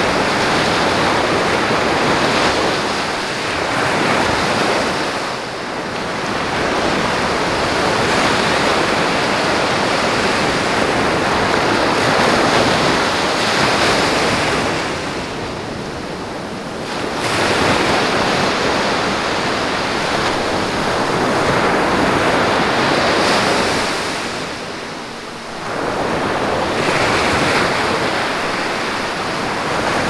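Ocean surf: waves breaking and washing in as a continuous rush of white water, easing off briefly about every ten seconds before the next wave breaks.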